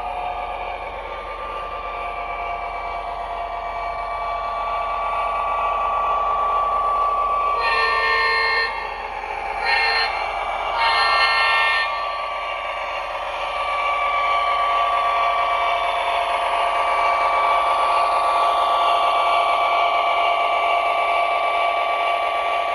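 Lionel LionChief Plus O gauge GP-7 model diesel locomotive running on track, its onboard sound system playing a steady diesel engine sound that grows louder as it approaches. About a third of the way in comes three horn blasts: long, short, long. It is running smoothly now that its wheels are pressed fully onto the axles.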